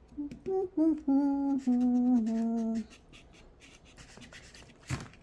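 A person humming a short tune of a few held notes, each step lower in pitch than the last. It is followed by faint handling clicks and one sharp crack near the end.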